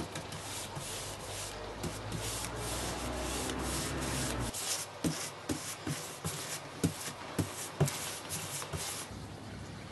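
Paintbrush bristles scrubbing paint onto the bare wood of an old tool chest, in short hissing strokes about three a second. In the second half a few sharp knocks come among the strokes.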